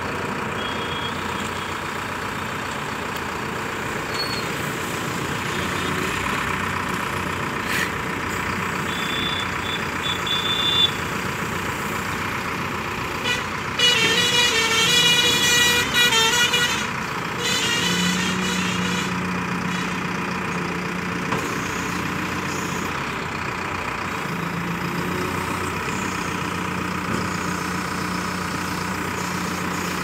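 Manitou Ranger 74.5 hp backhoe loader's engine running steadily under load while its hydraulics move the loader arm, backhoe and stabilizers. About halfway through, a louder shrill, pulsing sound lasts a few seconds, and later the engine note comes up for a while as the revs rise.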